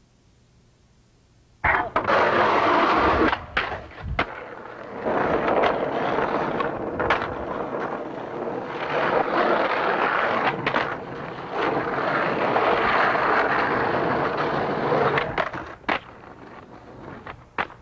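Skateboard wheels rolling on concrete, broken by sharp clacks of the board popping and landing tricks several times. It starts after about a second and a half of near silence.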